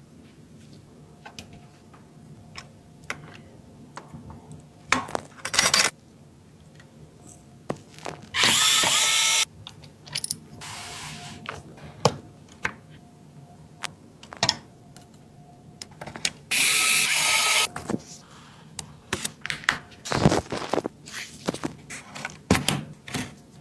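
Electric screwdriver running in two bursts of about a second and a half each, driving screws during a PC assembly, amid scattered small clicks and taps of parts being handled.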